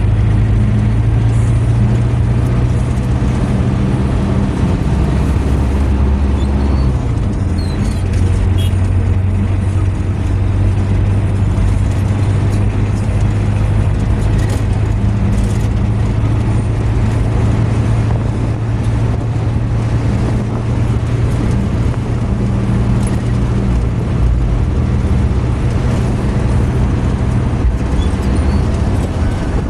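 Car engine hum and tyre and road noise heard from inside the cabin while cruising on a highway. The engine note shifts a few seconds in, then stays steady.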